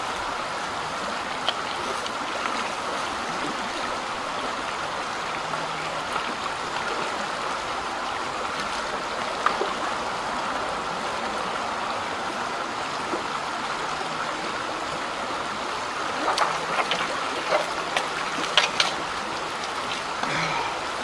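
Small creek flowing steadily over shallow riffles, a constant rushing of water. Near the end come a few sharp clicks and knocks.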